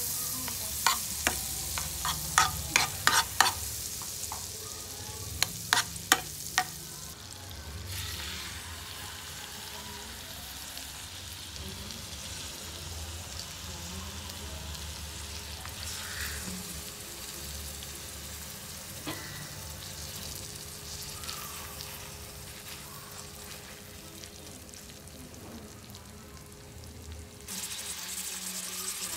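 Butter sizzling and frying in a pan. A utensil clicks and scrapes against the pan over the first several seconds, then comes a steady sizzle as beef steaks fry in the butter.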